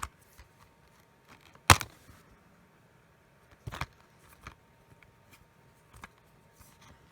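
A few scattered clicks and knocks as the plastic disc cases and cardboard packaging of a Blu-ray box set are handled, the sharpest and loudest about two seconds in.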